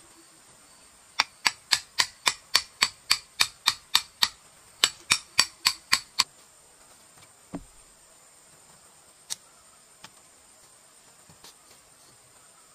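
A machete striking a bamboo stake in a fast steady rhythm, about three to four sharp blows a second: a run of about a dozen, a short pause, then about six more. A single duller thud follows, then a few light clicks, over a steady high hum of insects.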